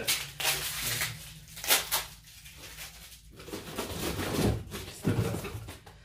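An old wooden sideboard's doors and fittings being handled: irregular wooden clatters and knocks, the sharpest just under two seconds in, then softer scuffling.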